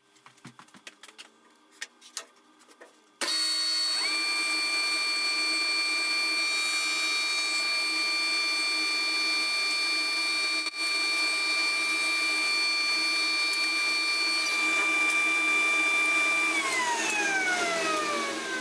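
A few light clicks, then a shop machine's electric motor switched on, whining up to speed within a second and running steadily, then switched off near the end and winding down in a falling whine.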